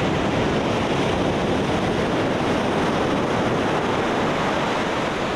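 Ocean surf washing in a steady rush of noise.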